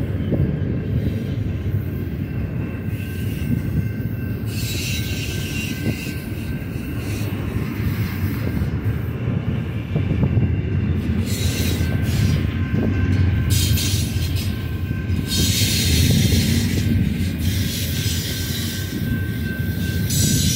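Double-stack container train's well cars rolling past on the mainline: a steady low rumble of wheels on rail. Stretches of higher-pitched wheel noise come and go several times.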